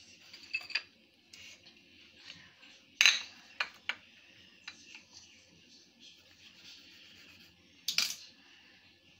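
Scattered sharp clinks and knocks of a kitchen knife and dishes on the countertop while a bar of chocolate is cut and broken into pieces; the loudest comes about three seconds in and another near the end.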